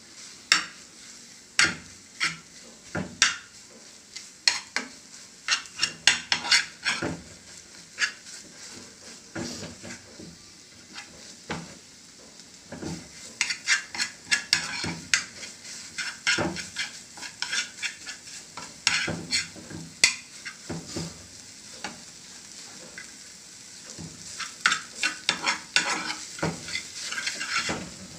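A metal spatula scrapes and taps against a frying pan as flaked tuna is stir-fried, over a steady sizzle from the pan. The scraping comes in irregular flurries, with a couple of brief lulls where mostly the sizzle is left.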